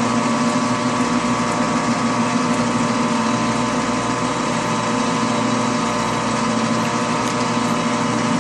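Metal lathe running at a steady speed with the chuck and workpiece spinning: a constant mechanical hum made up of several steady tones.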